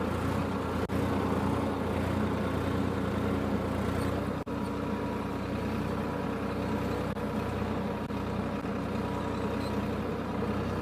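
Diesel tractor engine running steadily at an even pitch while pulling a moldboard plough through the soil.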